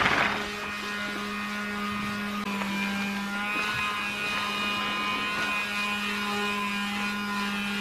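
Handheld electric sander running steadily with an even hum, sanding a pine frame.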